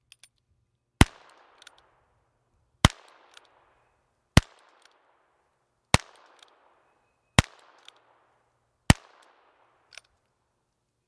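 Ruger Super Wrangler single-action .22 revolver fired six times, about one and a half seconds apart, each shot ringing off briefly. A faint short click falls between the shots.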